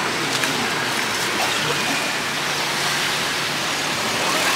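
Battered bananas and potatoes deep-frying in hot oil, a steady dense sizzle like rain, with street traffic faintly underneath.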